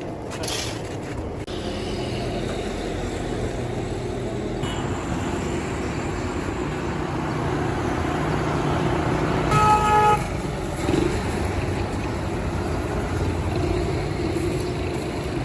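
Street traffic running steadily, with one vehicle horn honking for less than a second about two-thirds of the way through.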